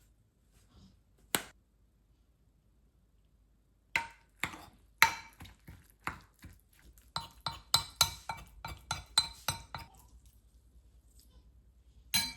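Kitchen utensils knocking against a ringing dish or pot: a single click, then about six seconds of quick repeated clinks, several a second, each with a short bright ring. A last sharp click comes near the end.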